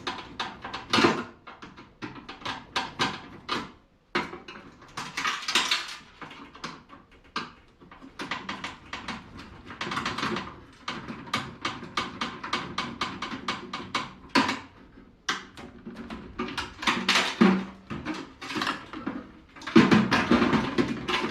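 Hand tools working on a microwave's metal parts: a rapid, irregular string of clicks, clanks and scraping as the parts are pried and cut loose.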